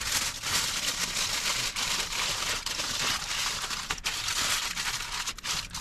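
Aluminium foil crinkling and crumpling with many irregular crackles as it is folded by hand into a parcel.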